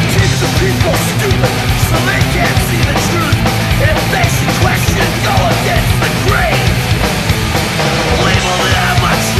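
Hardcore punk music: loud, dense distorted electric guitars over bass and drums, playing without a break.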